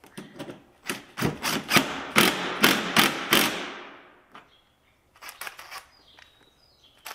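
Plastic and metal clicks, snaps and knocks as a vehicle grille and its clips are handled and fitted: a dense run of knocks for the first few seconds, then a few lighter clicks.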